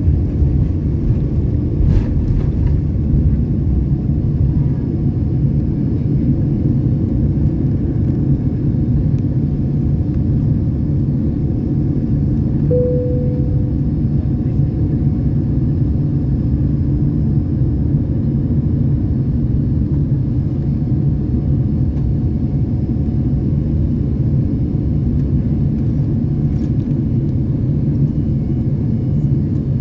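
Steady low rumble of an Airbus A330-900 airliner cabin in flight: engine and airflow noise. A single short tone sounds about halfway through and fades.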